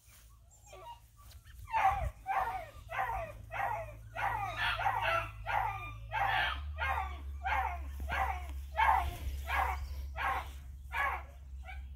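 A dog barking over and over at a steady pace, about sixteen short barks roughly one and a half a second apart, starting about two seconds in.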